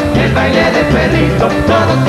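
Merengue orchestra playing live, with male voices singing over a pulsing bass line and dense band accompaniment.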